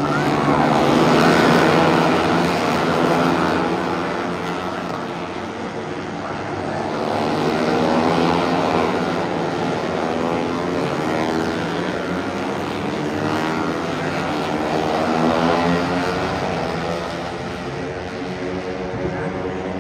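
Several Moto3 bikes' 250 cc single-cylinder four-stroke engines running at high revs, their notes overlapping and shifting in pitch. The sound swells three times as groups of bikes pass.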